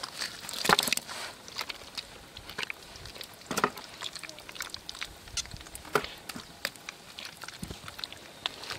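Hands squelching through thick wet mud in a shallow hole, groping for fish: irregular wet smacks and squelches.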